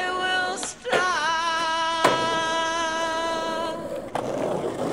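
Music with one long held note, sung and wavering as it starts. A skateboard clacks sharply against concrete about two seconds in and again near four seconds, and its wheels then roll on pavement.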